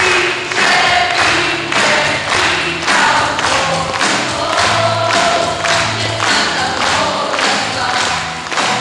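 Many voices singing a Christian worship song together with musical accompaniment, over a steady beat of about two strokes a second.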